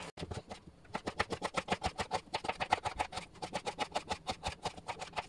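Kitchen knife slicing an onion on a plastic cutting board: a quick, even run of chopping strokes, about eight a second, starting about a second in.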